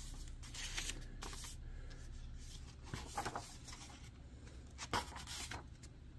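Paper pages of a spiral-bound book being turned by hand: faint rustling, with three brief louder page rustles.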